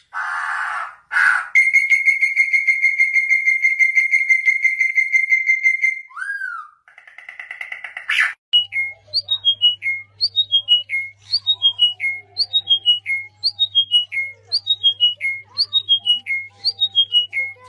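A bird's whistled calls. It opens with a couple of harsh hissing bursts, then holds a long pulsing whistle, then gives a short falling phrase that it repeats about once a second.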